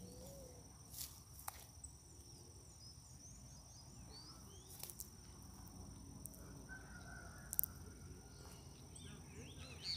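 Faint outdoor ambience: a steady high-pitched insect drone with scattered faint bird chirps over a low rumble, broken by a few sharp clicks.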